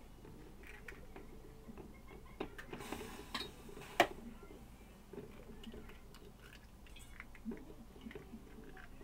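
Eggs being cracked into a bowl: light clicks and knocks of shell on a bowl, with one sharp knock about four seconds in, the loudest sound.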